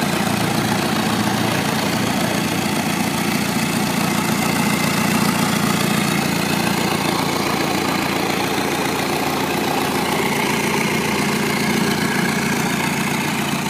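Isuzu 4JB1 four-cylinder diesel engine idling steadily, test-run out of the vehicle.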